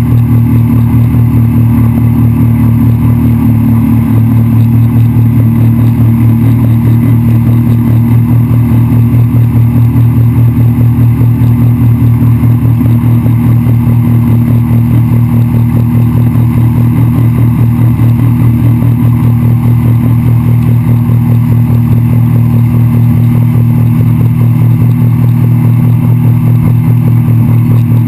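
Honda 50 hp four-stroke outboard motor running steadily at speed while towing, with the rush of the boat's wake and spray.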